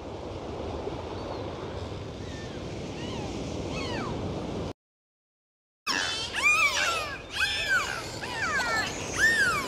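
Dolphins whistling underwater. First comes a steady rush of water noise with a few faint falling whistles. After a brief break about halfway through, a run of loud whistles follows, each rising and falling in a quick arc, several overlapping.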